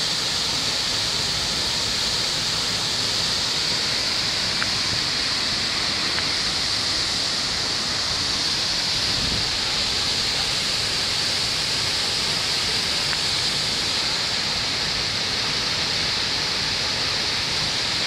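Waterfall plunging onto rock and into a pool: a steady, even rush of water.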